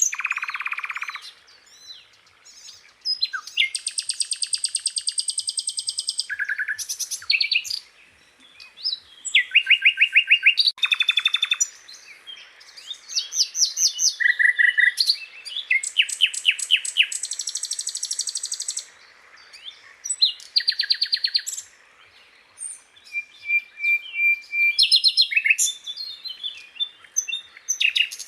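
A sikatan londo, an Indonesian flycatcher kept as a songbird, singing a long, varied song: fast buzzy trills and rattles, quick runs of repeated notes and short high whistles, broken by brief pauses.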